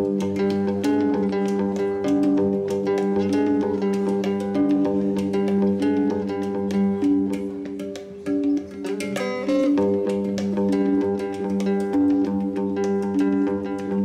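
Live instrumental music: a guitar picking notes over a steady low drone, with a brief drop in level about eight seconds in and a quick rising run of notes just after.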